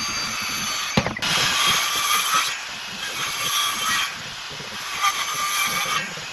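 Metalworking tool noise, running in stretches of a second or two that change in pitch from one to the next, with a sharp click about a second in.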